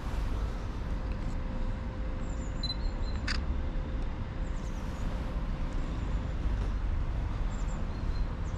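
Steady low outdoor rumble, with one sharp click about three seconds in.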